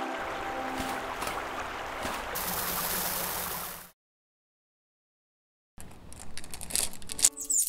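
Running-stream sound effect, a steady rushing hiss, fading out after about four seconds. Then about two seconds of silence, followed by a quick rattle of small clicks, with music starting near the end.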